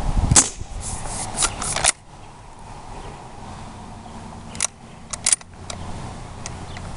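Umarex Legends Cowboy lever-action CO2 BB rifle: a sharp pop of a shot near the start, then a quick run of metallic clicks about a second in, and a few more sharp clicks around five seconds in.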